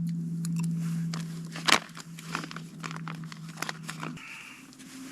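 Titanium spork clicking and scraping in a food pouch, with light crinkling, over a steady low hum that stops about four seconds in.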